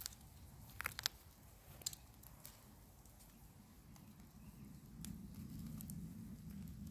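Faint scattered clicks and ticks over a low rumble that grows louder about five seconds in.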